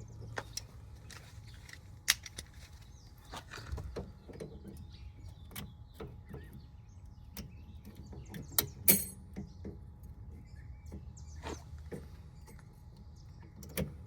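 Scattered metallic clinks and clicks of hand tools and parts being handled during front tie rod and boot work on a car, a couple of them sharper and louder, over a low steady hum.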